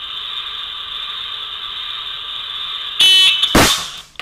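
A short electronic beep about three seconds in, then half a second later the sharp crack of a slingshot shot and its pellet striking the can target, followed by a few small rattling clicks, over a steady hiss.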